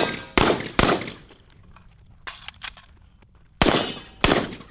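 Rifle firing single shots in two quick pairs, one near the start and one near the end, each shot a sharp crack with a ringing tail. A couple of fainter clacks fall in between.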